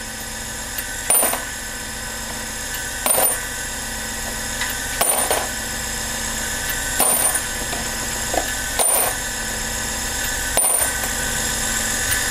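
A Giraud power case trimmer's motor runs steadily with a constant hum. About every two seconds there is a short burst of cutting noise as each rifle brass case is pushed into the spinning cutter head to be trimmed to length and chamfered.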